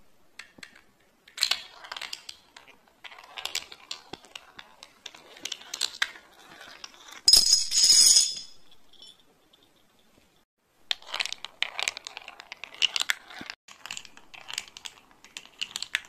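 A marble clicking and rattling down a plastic block marble-run track, then a line of plastic dominoes toppling in a chain of light clattering clicks, ending in a small bell ringing loudly about seven seconds in. After a short lull the marble run and domino clatter start again.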